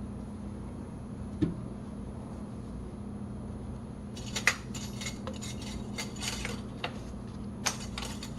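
Light clinks and clatters of containers and tools being handled while new engine oil is added: one knock about a second and a half in, then a run of quick clinks in the second half, over a steady low hum.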